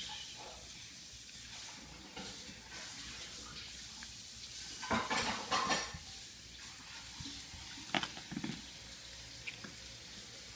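Fidget spinner being handled and spun: a steady faint whir, with a cluster of clattering knocks about five seconds in and a sharp click near eight seconds.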